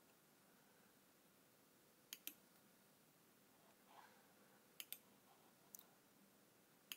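A handful of short, sharp computer mouse clicks, several in quick pairs, spaced a second or two apart over near silence.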